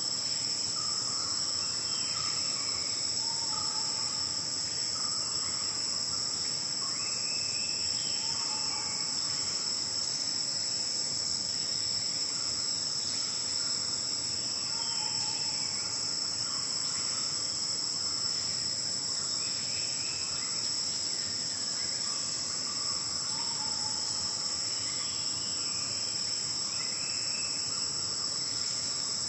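Steady, high-pitched, unbroken drone of a forest insect chorus, with faint short bird calls recurring every few seconds in the background.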